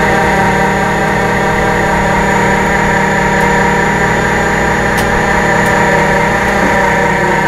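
Ford F-550 rollback tow truck's engine running steadily under the load of its bed winch as the wire rope draws a heavy pickup up the bed.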